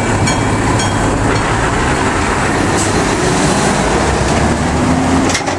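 Toyota Long Pass Express freight train running past over a level crossing: a loud, steady, deep rumble of the train with some clickety-clack of the wheels over the crossing. The crossing's warning bell strikes about twice a second at the start before it is lost under the train.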